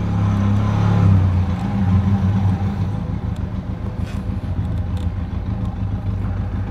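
A motor vehicle engine idling steadily.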